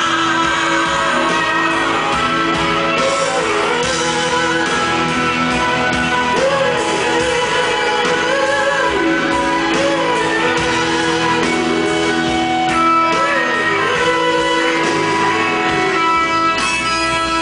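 Rock band playing live, heard from the audience: electric and acoustic guitars over drums, with a voice singing.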